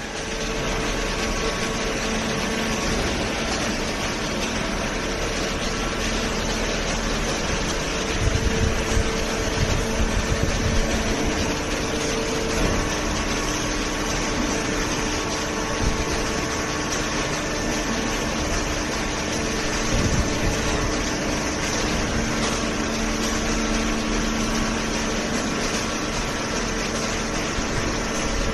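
Hydraulic cardboard baler and its feed conveyor running: a steady machine drone with faint held hum tones, and a few dull low knocks about a third of the way in.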